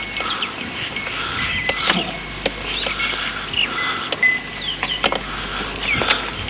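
Small birds chirping again and again, over scattered sharp clicks and light metallic jingling while cattle are handled.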